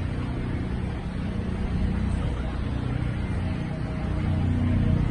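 Steady low engine drone with a deep hum, growing louder near the end.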